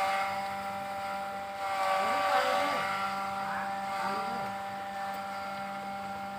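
Steady machine hum made of several unchanging tones, like a motor running. About two and four seconds in, brief wavering sounds rise and fall over it.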